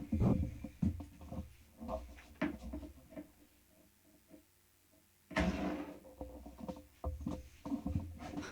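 A Zippo lighter being handled for a bar-slide trick: a string of small clicks and knocks over the first three seconds, a short hissing rush about five seconds in, then more scattered clicks.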